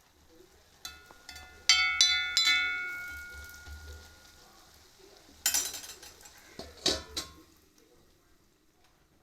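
Metal kitchen vessels and utensils clinking together: a few sharp strikes that ring on and fade over a second or two, then a scraping clatter and two or three knocks a few seconds later.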